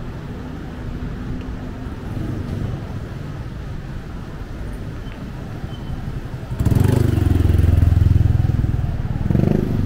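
Steady low street-traffic rumble. About two-thirds of the way in, a motor vehicle's engine suddenly passes loudly close by for a few seconds, swelling again briefly near the end.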